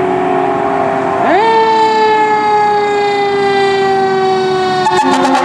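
Fire engine siren, sweeping sharply up in pitch about a second in and then slowly falling, over a traffic noise background. Electronic music cuts in near the end.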